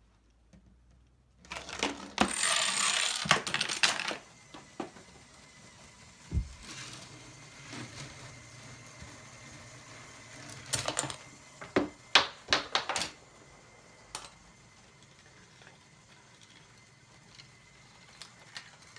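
Small balls and plastic toy parts rolling, rattling and clicking through a home-built chain reaction. A long rattling roll along plastic track starts about a second and a half in, followed by scattered clicks and knocks and a quick run of clattering impacts around twelve seconds in.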